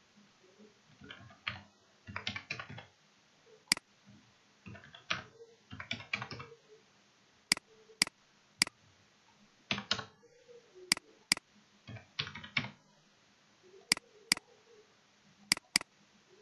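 Computer keyboard typing in short runs of keystrokes, broken up by single sharp mouse clicks, several of them in quick pairs.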